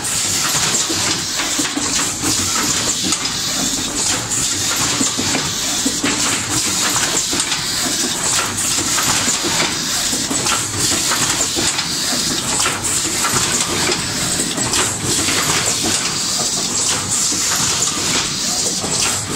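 Automatic rigid box making line (gluing, corner pasting, positioning and box wrapping) running continuously: steady machine noise with a dense, irregular clatter of short clicks and knocks over a constant high hiss.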